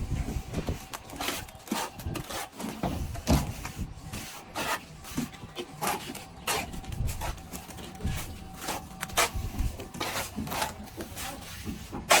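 Hand plastering tool scraping and rubbing plaster across a wall in short, irregular strokes, about two or three a second.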